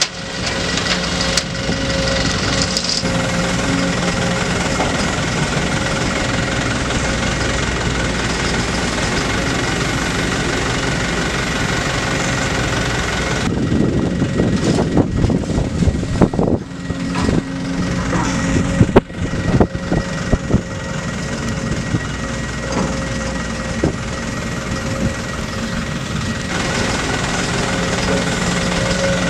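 Sumitomo SH210 long-reach hydraulic excavator's diesel engine running steadily. For roughly the middle half, irregular knocks and heavy thuds come in as bucket loads of wet river sediment are dumped into the steel bed of a dump truck.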